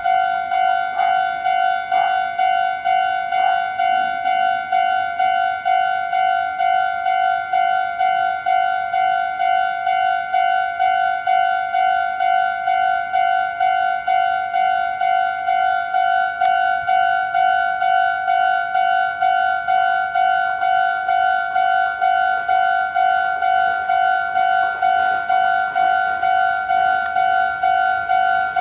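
Japanese railway level-crossing warning bell: an electronic bell tone striking over and over at a quick, even rate, signalling that a train is approaching and the crossing is closed.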